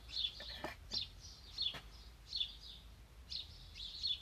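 Songbird chirping in the garden: a run of short, high, falling notes, about one or two a second.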